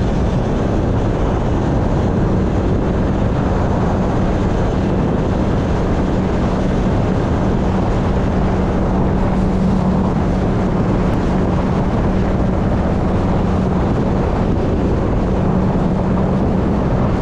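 Speedboat engine running steadily at speed, a constant hum under a broad rush of wind on the microphone and water.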